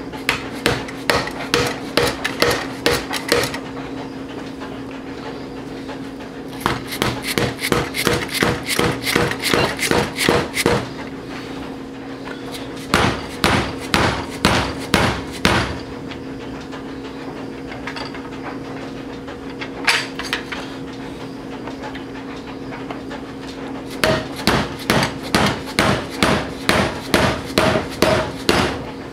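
Hammer blows on a chisel driven between the two halves of a Ford 6.0L Powerstroke turbocharger, in runs of sharp strikes about three a second with pauses between, to break the stuck housings loose. A steady low hum runs underneath.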